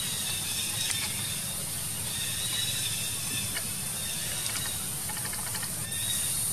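Steady, high-pitched insect chorus droning without a break, the kind cicadas make in a tropical forest canopy, with a faint low rumble beneath it.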